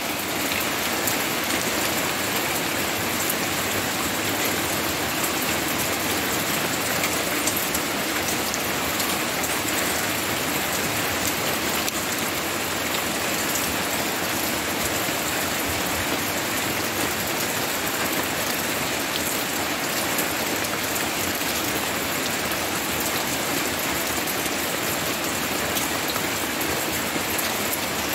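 Steady rain shower falling on banana plants and dense foliage: an even, unbroken wash of rain with fine scattered drop patter.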